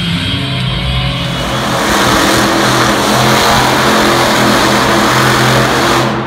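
Monster truck engine revving hard and running at high power as the truck spins donuts on the dirt arena floor, starting about a second in. Arena music plays underneath.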